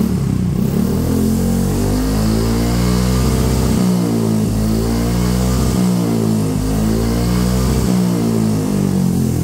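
Yamaha Fazio scooter's single-cylinder four-stroke engine running through a new aftermarket muffler for a sound check, revving up and down about every two seconds. The exhaust note is soft.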